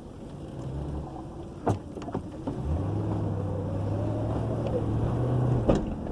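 Car driving with a low engine hum, heard from inside the cabin, and two sharp pops about four seconds apart from the car's front end, a noise that started suddenly and that the owner suspects is the sway bar.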